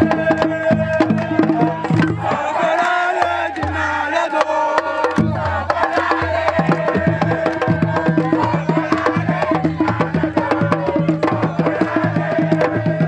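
Music with fast, dense percussion over a bass line and held melodic notes.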